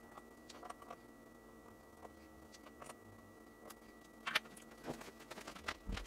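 Faint small clicks and ticks of tiny Torx screws and a precision screwdriver being handled and set into a plastic parts tray, with a sharper click about four seconds in and a few more near the end.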